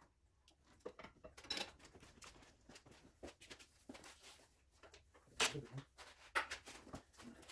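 Faint, irregular metal knocks, clicks and scrapes as a Cadillac Northstar engine is wiggled by hand to line it up with the transmission's guide pins. The two loudest knocks come about five and a half and six and a half seconds in.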